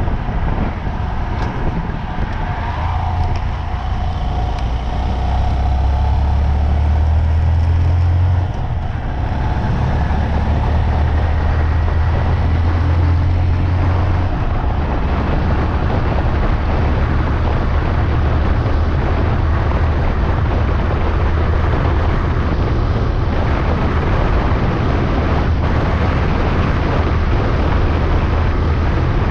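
Motor vehicle driving on the road: a steady low engine drone under road and wind noise, the engine note rising about five seconds in and dropping back about eight seconds in.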